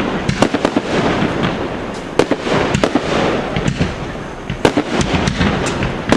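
Fireworks display: a dense run of sharp cracks and bangs from bursting shells and crackling effects, several a second, over a continuous rumble.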